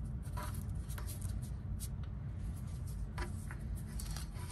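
Light handling sounds of foam spool pads being placed onto the plastic spool pins of an embroidery machine's thread stand: a few scattered soft clicks and rustles over a steady low hum.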